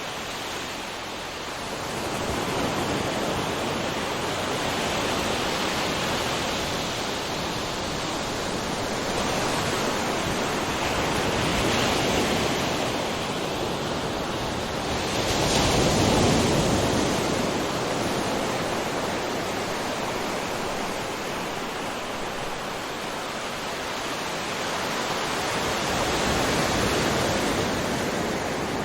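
Ocean waves breaking on a shore: a continuous wash of surf that swells and ebbs, with the biggest wave breaking about halfway through.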